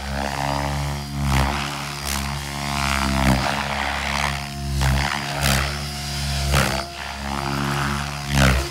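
Electric 3D RC helicopter flying a snake manoeuvre: a steady rotor and motor hum, with a rushing whoosh about every second as the blades bite through each swing.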